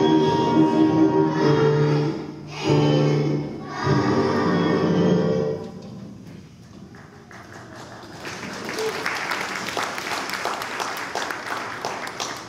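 Children singing a song with musical accompaniment, held notes with short breaks; the song ends about six seconds in. About two seconds later an audience starts applauding.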